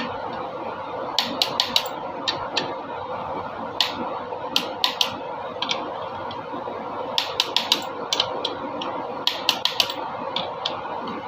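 Hand-tool work on metal engine parts: sharp metallic clicks come in short, uneven clusters of two to five over a steady hum.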